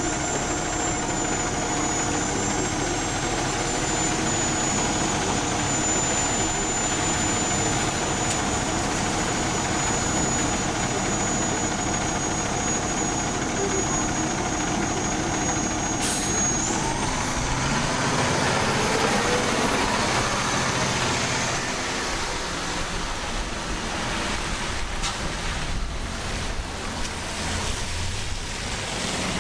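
Heavy truck engine idling with a steady high whine. About sixteen seconds in there is a short hiss, then the engine note rises and changes as the truck pulls away.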